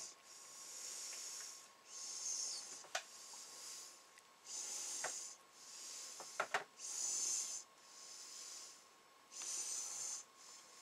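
A person breathing close to the microphone: soft hissing breaths about every two and a half seconds, with a few faint clicks in between.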